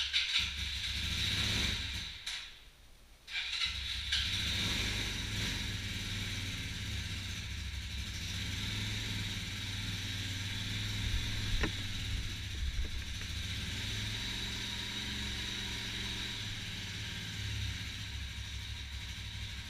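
Motorcycle engine idling steadily, cutting out for under a second about two and a half seconds in and then running on evenly. A single sharp click about halfway through.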